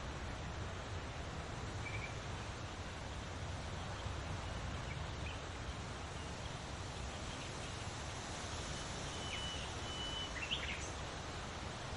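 Wind rustling through leaves with a steady low rumble, and a few scattered bird chirps, with a short whistled note and quick calls near the end.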